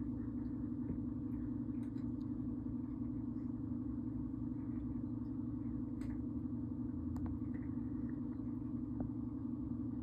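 A steady low hum with a faint rumble beneath it, and a few faint ticks now and then.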